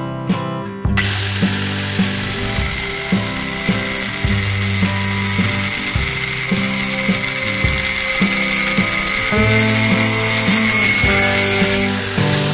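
Angle grinder with a cut-off disc cutting into steel rebar: a steady high whine over a harsh grinding hiss, starting about a second in. Near the end it is switched off and the pitch falls as the disc spins down. Guitar background music plays throughout.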